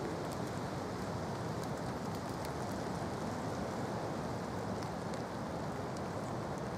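Steady rain and wind: an even rushing hiss, with small raindrop ticks scattered through it.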